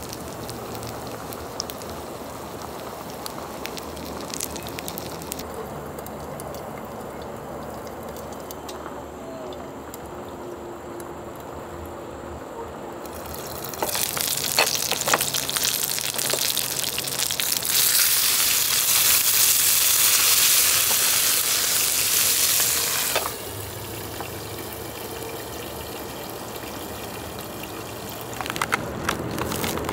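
Broth bubbling at a hard boil in an electric hotpot alongside chicken wings sizzling on its grill plate. About 14 seconds in the hiss of frying grows much louder and holds for about nine seconds before dropping back suddenly; a few sharp crackles come near the end.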